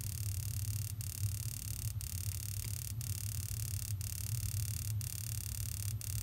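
Steady low hum from the gas heating appliance's running machinery, with no spark or ignition heard.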